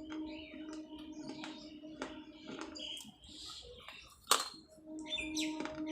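Crunching and cracking of baked clay pot pieces being bitten and chewed, with irregular sharp clicks and one loud crack about four seconds in. A bird chirps in the background over a steady low hum.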